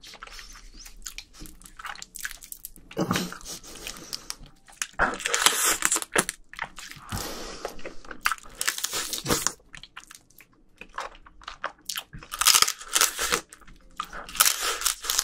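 A person eating spicy marinated raw crab (yangnyeom gejang) close to the microphones: irregular wet bites, sucks and slurps at the crab pieces, with crunches of shell.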